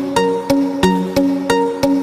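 Background music: a steady run of plucked-sounding pitched notes, about three a second.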